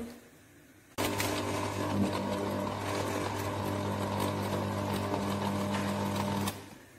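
Philips ProBlend 5 countertop blender switched on about a second in, its motor running at a steady pitch as it grinds a thick paste of minced beef and ice for meatballs, then switched off shortly before the end.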